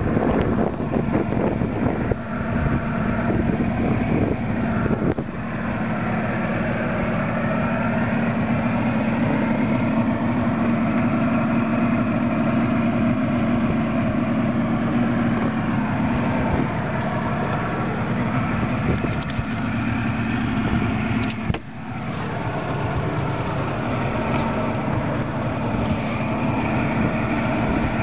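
Mercury 115 hp outboard engine running steadily, an even drone that dips briefly about three-quarters of the way through.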